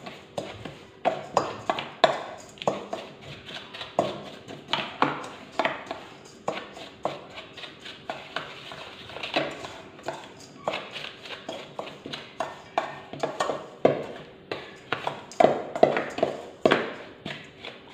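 A metal spoon clinking and scraping against a stainless steel mixing bowl while stirring crushed biscuit crumbs with melted margarine, with irregular taps a few times a second.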